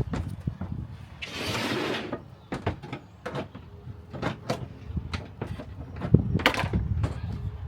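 Knocks, clunks and sliding noises of someone moving about in the back of a small van, with a sliding rush about a second in and a louder knock and rush near the end.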